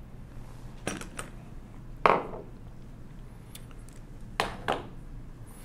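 Metal calculator parts, gear wheels among them, being set down and moved on a tabletop: several light clinks and knocks, the loudest, with a short ring, about two seconds in.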